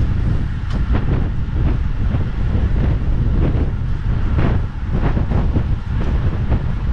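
Wind buffeting the microphone of a camera on a road bike moving at about 26 mph: a loud, steady low rumble, with road and tyre noise and scattered short knocks and rattles from the road surface.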